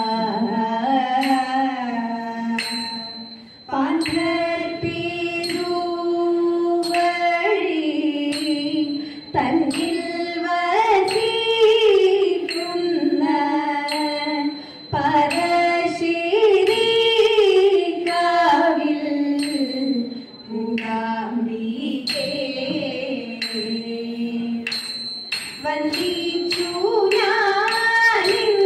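A Thiruvathira song sung in Carnatic style, a voice carrying a gliding melody, with sharp hand claps at regular intervals from the dancers clapping in time.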